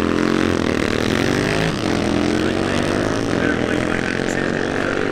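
Drag-racing motorcycles launching off the line and accelerating hard down the strip. The engine pitch climbs, drops sharply at an upshift about two seconds in, then climbs again.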